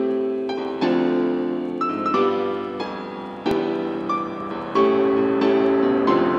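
Background music: chords struck every second or so, each ringing on and fading.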